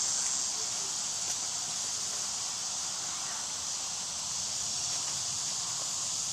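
Insect chorus outdoors, a steady high-pitched buzz with no breaks.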